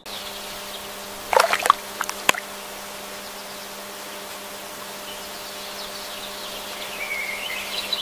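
Nature ambience: a steady hiss under a low steady hum, broken by a cluster of sharp clicks and chirps between about one and two and a half seconds in, with faint chirping near the end.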